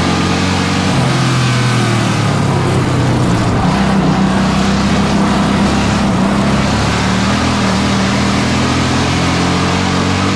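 Pure stock race car's engine heard from inside the cockpit, running under load on track, its note rising and falling several times as the throttle is opened and lifted.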